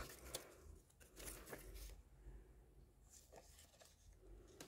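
Near silence with faint rustles and a few light ticks as a strip of glue dots on its backing is pulled from the roll and handled.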